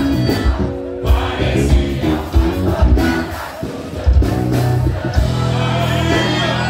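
Live gaúcho band music: a male singer with accordion, drum kit and bass guitar, over a steady drum beat.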